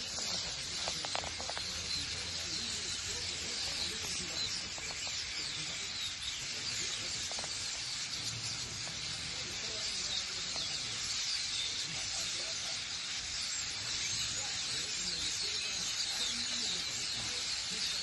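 Hundreds of starlings calling at once: a steady, dense chatter of many overlapping high squeaks and whistles.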